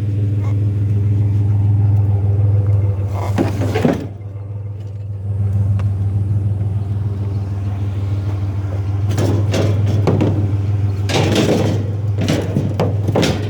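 Truck engine running steadily with a low hum, dipping briefly about four seconds in, with several short knocks and rattles.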